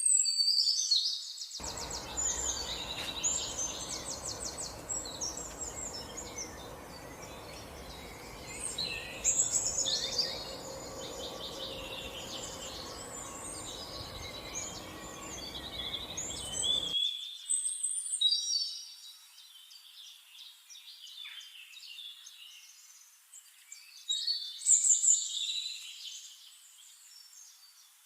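Several songbirds chirping and trilling throughout in overlapping phrases. Beneath them a stream's babbling water starts shortly after the beginning and cuts off suddenly a little past the middle, leaving the birds alone.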